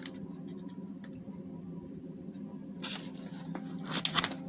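A 150 mm inline duct fan running with a steady hum, blowing stove-heated air through a 160 mm aluminium flexible duct. A few short rustling clicks come over it, the loudest about four seconds in.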